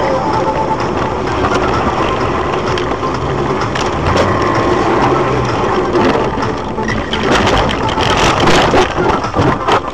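A car crash: engine and road noise with a sharp knock about four seconds in, then a dense run of crunching, clattering knocks over the last three seconds.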